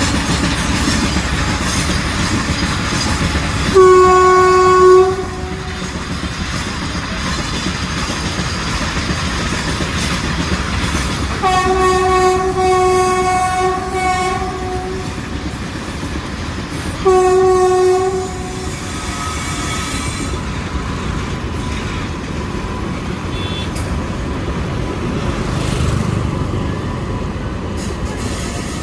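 Horn of an Indian Railways WAP-7 electric locomotive sounding three blasts: a short one about four seconds in, a longer one of about three seconds near the middle, and another short one soon after. Between the blasts there is the steady running noise of the train.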